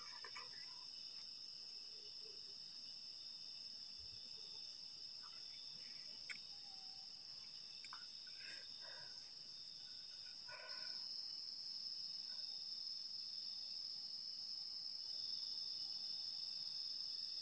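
Chorus of night insects such as crickets, a steady high-pitched chirring that grows a little louder about ten seconds in, with a faint tick about six seconds in.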